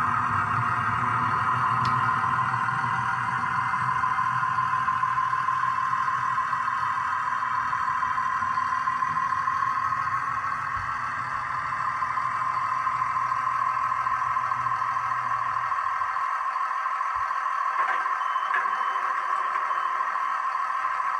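Model train running on the layout's track: a steady motor hum with wheel rumble. The low rumble stops about three quarters of the way through.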